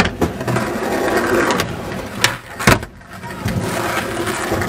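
Skateboard wheels rolling over pavement, a steady rough rumble broken by several sharp clacks of the board, the loudest about two and a half seconds in; the rolling drops away briefly near three seconds in and then starts again.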